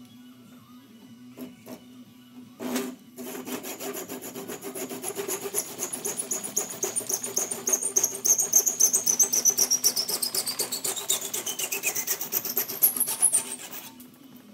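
Hand saw cutting wood in quick, even back-and-forth strokes that start after a single knock about three seconds in and stop near the end. A high ringing over the strokes slides down in pitch shortly before the sawing stops.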